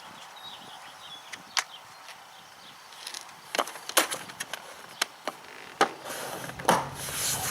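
Sharp plastic clicks and knocks, about eight spread unevenly, with a brief scraping rustle near the end, as the cabin filter housing's trim clip and cover are pushed back into place on a BMW E60.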